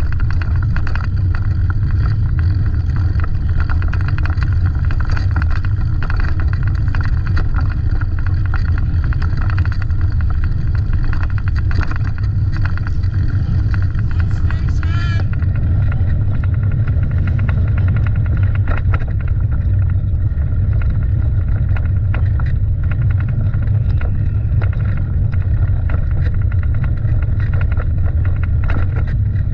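Steady loud low rumble with voices faintly over it.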